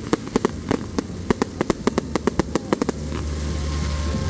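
Fireworks display: rapid runs of sharp cracks and pops for about three seconds, giving way to a steady hiss and low rumble.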